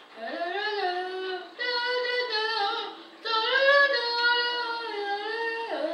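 A child's high voice singing long wordless notes that slide up and down in pitch, in three phrases with short breaks between them.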